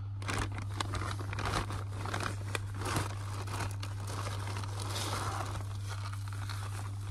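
Rustling and crinkling of a lightweight fabric bag and the food packets inside it as hands rummage through it, with many small clicks, over a steady low hum.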